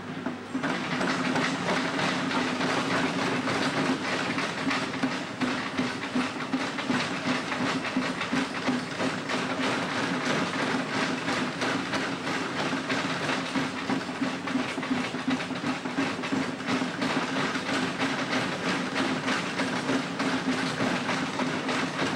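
Caterpillar backhoe loader's diesel engine running at a steady pitch, with a dense, continuous rattling clatter as the boom and bucket work the pavement to break up the driveway.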